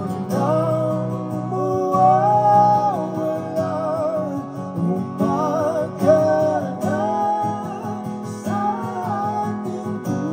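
Two male voices singing together through microphones, with vibrato on held notes, over a strummed acoustic guitar, amplified live.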